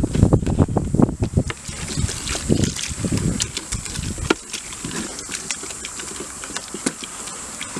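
A wooden stick stirring thick, heating flour-and-water paste in an old electric deep fryer: wet, irregular stirring strokes for the first three to four seconds, then quieter, with scattered small clicks.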